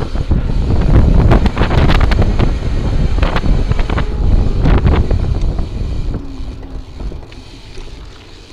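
Wind buffeting the microphone of a camera mounted on a moving bicycle, with low road rumble and many sharp knocks and rattles from the mount. It dies down over the last two seconds.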